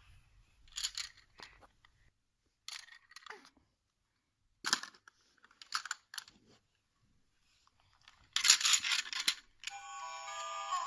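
Intermittent rustling and clicking of objects being handled, with a quick rattling run about eight seconds in, then a series of short electronic tones near the end.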